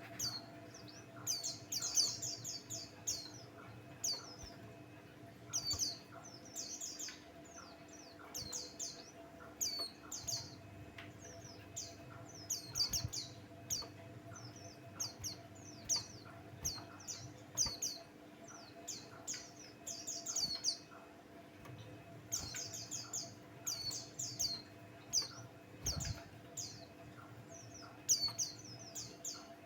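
White-eye singing: short phrases of high, fast chirping notes repeated every second or so, with brief pauses, over a faint steady hum.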